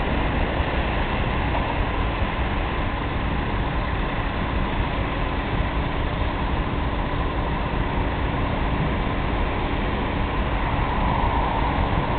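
DAF truck fitted with a Schäfer spraying rig running as it slowly approaches, a steady drone with a faint constant hum, getting a little louder near the end.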